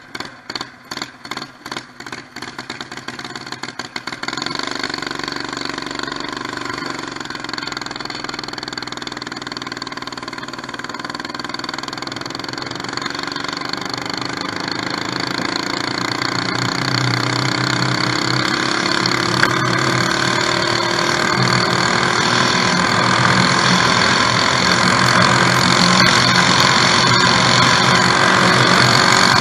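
Mini bike's small engine, pulsing unevenly for the first few seconds, then running steadily as the bike rides off. Its pitch climbs slowly as speed builds, with a rushing noise that grows louder.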